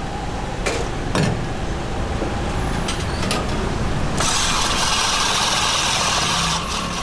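Ice-shaving machine shaving ice into a steel bowl: a steady, loud hiss that starts about four seconds in and stops near the end. Before it, a few sharp clinks of a metal ladle against the steel bowl, over a low background rumble.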